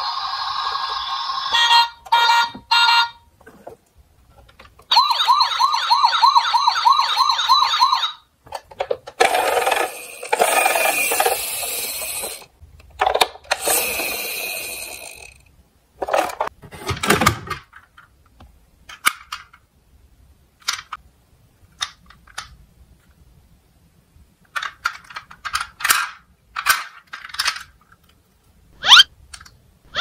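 Battery-powered toy fire truck's electronic sound module playing siren effects. It opens with a steady tone, then gives a few short beeps and a warbling siren for about three seconds, followed by noisier effects and a falling tone. After that come scattered clicks and rattles of the plastic toys being handled.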